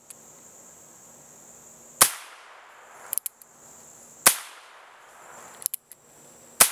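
Western Six .22 LR single-action revolver fired three times, about two seconds apart, each a sharp crack with a short fading tail. Between shots come quieter clicks as the hammer is thumbed back to cock it for the next shot.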